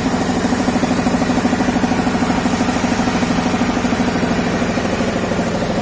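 Engine-driven air compressor running steadily with an even, rapid pulsing beat, pumping air through a hose into drums lashed to a sunken boat to float it.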